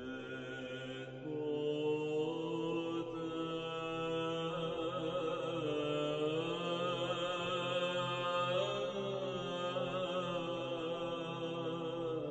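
Background music of slow chanting voices holding long notes over a steady low drone. The voices grow louder a little over a second in.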